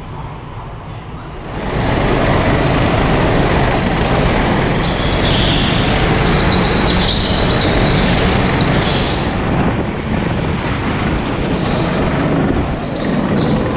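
Go-kart engines running on a track inside a hall, getting much louder about a second and a half in and staying loud, with a thin high whine through the middle.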